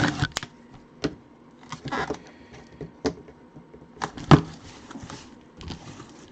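A cardboard box being opened by hand to get at a mini helmet: scattered rustles, scrapes and taps about once a second, with a sharp knock about four seconds in.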